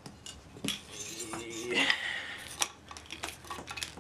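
Aluminium stand of an Apple Cinema Display being worked off the display's hinge: metal clinking and knocking, with a scraping rub around the middle.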